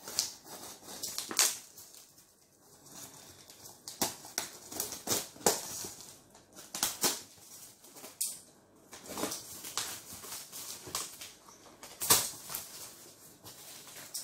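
Cutter knife slicing through packing tape and cardboard on a shipping box, with tape being pulled and peeled, heard as a string of short, irregular scratches and rips.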